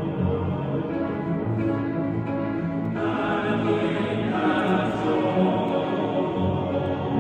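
Mixed choir singing sustained chords with a string orchestra in a large stone cathedral. About three seconds in, the chord brightens.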